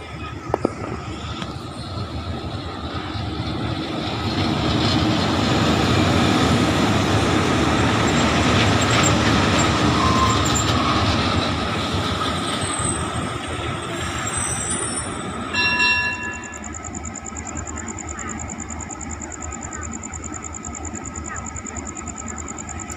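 Hitachi diesel-electric locomotive running light with no cars: its engine and wheels grow louder over the first several seconds, are loudest as it passes, then fade as it draws away. About 16 s in comes a short horn blast, after which a steady high-pitched whine remains.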